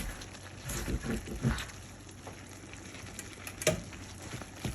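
Beef and vegetables sizzling in a frying pan while a spatula scrapes and knocks against the pan as they are stirred. There is a cluster of knocks about a second in and one sharper knock near the end.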